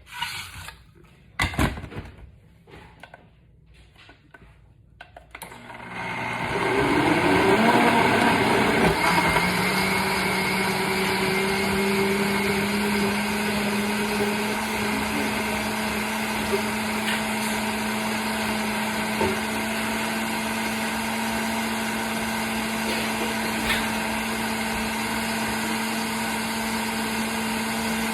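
A few clicks and knocks, then about six seconds in a countertop blender starts up, blending spinach, fruit and water for green juice. Its pitch wavers for a few seconds as it works through the chunks, then settles into a steady whir.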